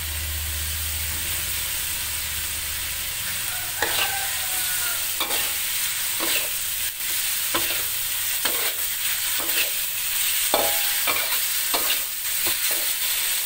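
Boiled tuna pieces sizzling in fried spice paste in a wok, while a metal spatula stirs and turns them, scraping and knocking against the wok about once a second from about four seconds in.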